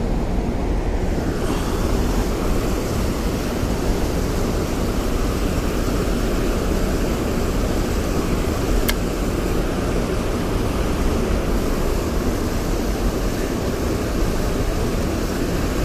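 Steady rush of water from a dam spillway, a constant even noise heaviest in the low end, with one sharp click about nine seconds in.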